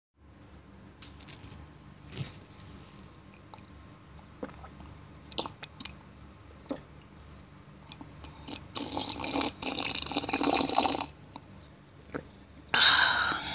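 A person slurping coffee loudly, Japanese-style. A few small clicks and sips come first, then a long, loud slurp of about two seconds starts near nine seconds in, and another loud burst begins near the end.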